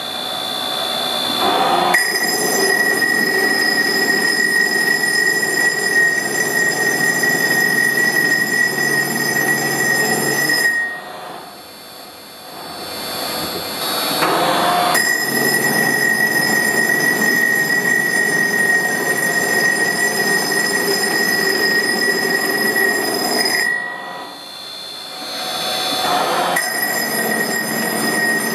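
Bridge saw spindle driving a Lupato chiselling tool across a wet marble slab: a steady high-pitched whine over a grinding rasp as it textures the stone. The sound drops away twice for two to three seconds, then picks up again.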